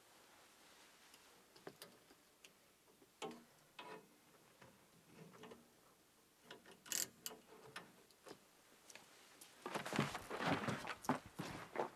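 Faint scattered clicks and small metallic clinks as hands work at a metal fitting on a pipe, with a sharper click about seven seconds in. Near the end comes a louder burst of rustling and knocking, the sound of a quick scuffle of bodies and clothing.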